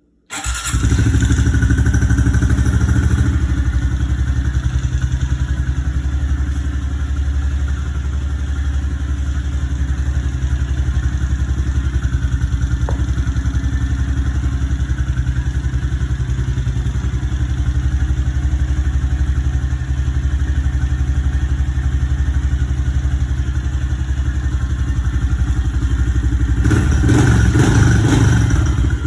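2021 Honda CRF110's small single-cylinder four-stroke engine starts up just after the beginning and idles steadily. It runs a little faster for the first few seconds and picks up briefly near the end. The engine is being run for a few minutes to warm the oil before an oil change.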